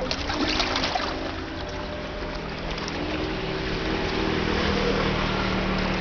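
Motorboat engine humming out on the lake, its steady drone growing a little louder in the second half, over a hiss of wind and lapping water.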